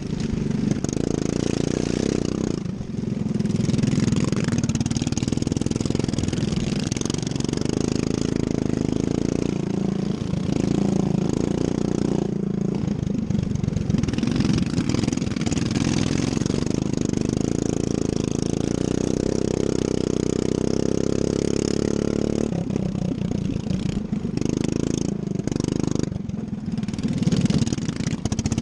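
Racing lawn mower engine running hard, its note rising and falling with the throttle, with a few brief drops where the throttle comes off.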